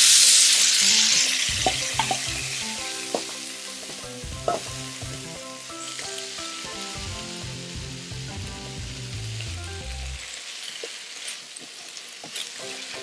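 Wide rice noodles stir-frying in hot oil in a wok. A loud sizzle at the start settles over the first few seconds into a steady frying hiss, with a metal spatula scraping and tapping the pan.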